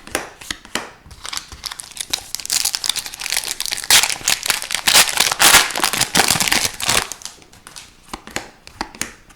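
Foil wrapper of an Upper Deck hockey card pack crinkling and tearing. It is loudest for a few seconds in the middle, with lighter clicks and rustles of card handling before and after.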